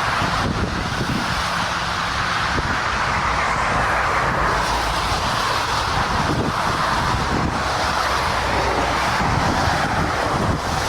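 Airbus A330 on a wet runway after landing: a steady rushing noise of engines, wheels and spray, with no change in level.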